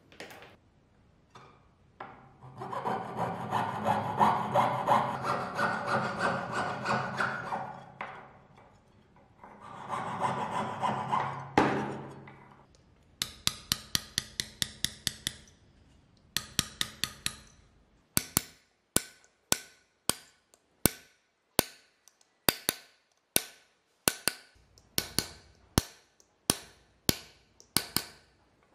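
Metalworking by hand. First come two stretches of steady rasping hand-tool strokes on metal. Then come sharp hammer blows on a steel punch, a quick run of them, then regular strikes about twice a second as a copper piece is domed in a brass dapping block.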